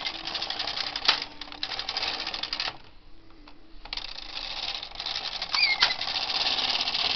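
Carriage of a Bond Classic Plus hand knitting machine pushed across the needle bed, its metal needles clattering rapidly as it knits a row. It stops briefly and is pushed back for the next row. Partway through the return pass there is a short, high squeak, which the operator cannot place between the row counter and one of the needles.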